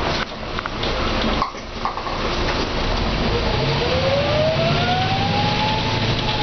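Mercedes-Benz O405N bus running under way, its diesel engine and ZF automatic gearbox heard from on board over road noise. The sound dips briefly twice in the first two seconds, then a whine rises steadily in pitch as the bus picks up speed.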